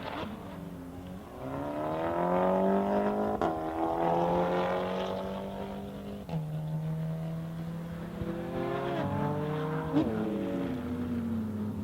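Porsche 992 GT3 RS's naturally aspirated flat-six with a Soul exhaust accelerating hard on track. Its pitch climbs and drops back at quick upshifts about three and six seconds in, and there is a sharp crack about ten seconds in.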